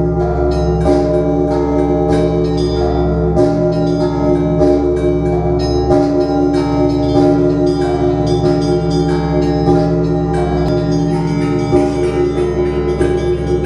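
Bells ringing in a continuous peal: frequent strikes, several a second, over long overlapping ringing tones.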